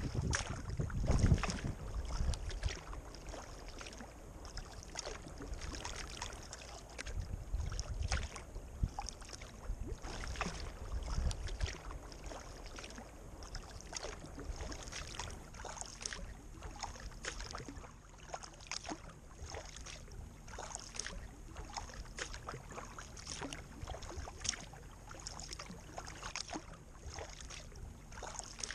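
Kayak paddling on a lake: frequent small splashes and drips from the paddle strokes and water slapping against the kayak's hull. Wind buffets the microphone in the first couple of seconds and again about eight to twelve seconds in.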